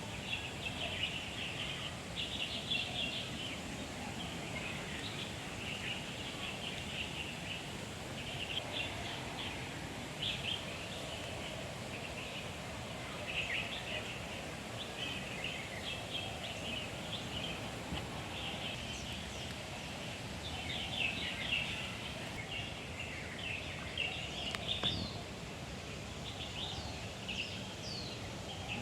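Birds chattering and chirping without pause, many short overlapping calls, with a few quick whistled notes near the end, over a steady low background hum.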